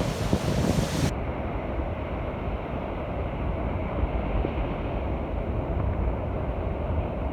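Stormy Black Sea surf and wind rumbling on the microphone, a steady low rumble. It turns muffled about a second in.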